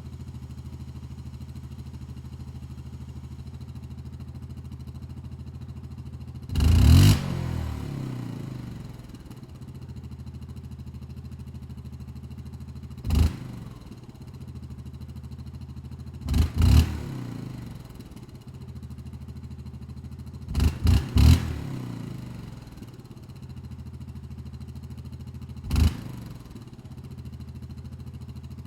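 Utility ATV's four-stroke engine idling steadily, revved in short throttle blips several times (once in a quick burst of three), each rev falling back down to idle.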